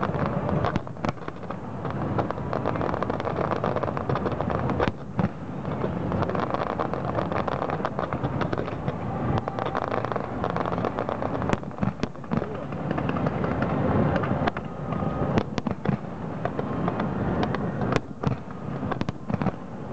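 Distant fireworks display: sharp bangs and cracks of bursting shells scattered throughout, over a constant rumble of overlapping bursts.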